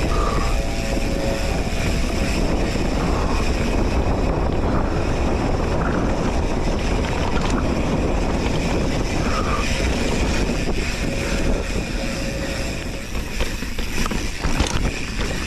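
Wind rushing over an action camera's microphone and tyre noise as a mountain bike rolls along a dirt trail. Near the end the sound turns choppier, with a few knocks and rattles from the bike over rough ground.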